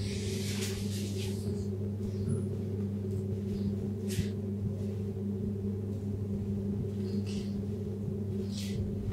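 A steady low hum throughout, with short rustles of wood shavings and feathers as a short-toed snake eagle moves over a snake it is eating: one near the start and a few more later.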